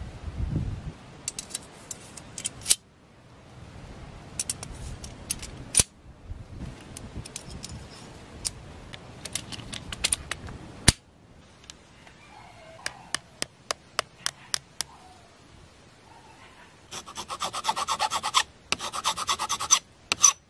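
Katana fittings being handled and fitted by hand: scattered sharp clicks and taps of the steel blade tang against the brass guard and collar, with rubbing. Near the end, two runs of rapid scraping strokes, each about a second and a half long.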